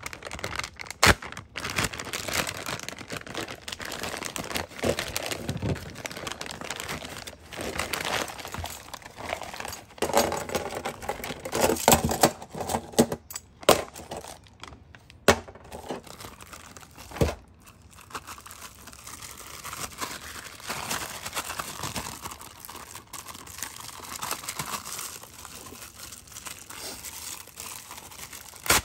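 Clear plastic bags and plastic wrap crinkling as hose clamps and silicone couplers are unwrapped, with several sharp clicks among it.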